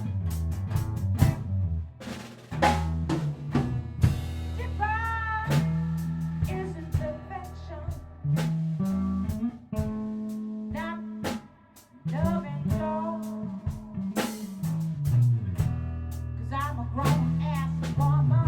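Band rehearsing blues-rock: guitar playing bending lead lines over bass guitar and a drum kit with snare and rimshot hits. The band stops for a moment a little before two-thirds through, then comes back in.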